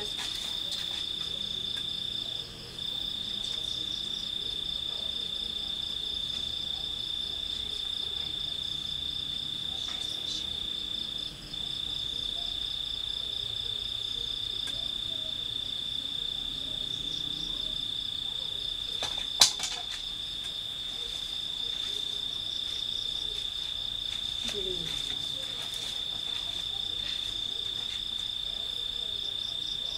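A night insect trilling steadily at one high pitch, breaking off briefly twice in the first dozen seconds. A single sharp click sounds about two-thirds of the way through.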